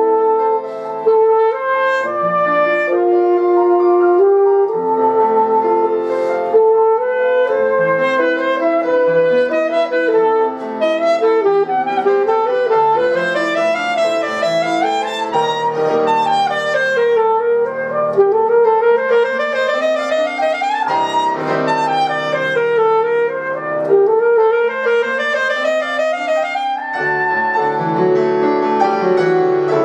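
Alto saxophone playing a classical solo line with Petrof grand piano accompaniment. In the middle the saxophone runs quickly up and down in repeated scale passages over the piano's chords.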